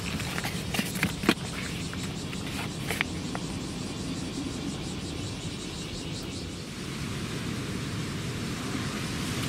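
A few sharp clicks and knocks as things are picked up and moved about in a plastic tub of surf gear, bunched in the first three seconds or so, the sharpest just over a second in. A steady hiss of outdoor background noise runs under it.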